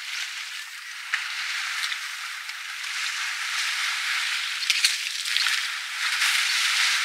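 African bush elephant splashing and spraying water from its trunk while standing in a waterhole: a rushing, pattering spray that grows louder, with sharper splashes about a second in and again near five seconds.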